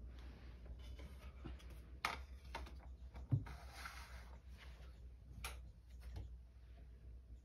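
A few sharp clicks and one soft thump about a third of the way in, with a brief scratchy rustle just after it, in a quiet room.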